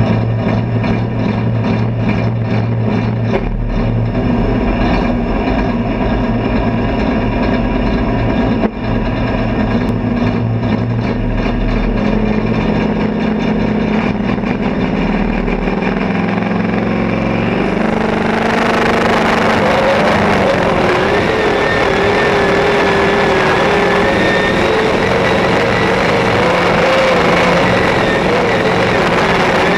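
John Deere Super Farm pulling tractor's turbocharged diesel engine idling steadily at the line. About eighteen seconds in it goes to full throttle and runs hard under load through the pull, with a wavering high whine over the top.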